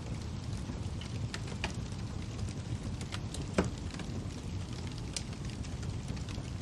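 Fire crackling: a steady low rumble with scattered sharp pops and snaps, the loudest about three and a half seconds in.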